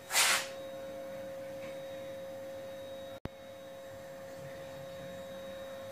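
A steady, high electrical hum, with a short hiss just after the start and a sharp click about three seconds in.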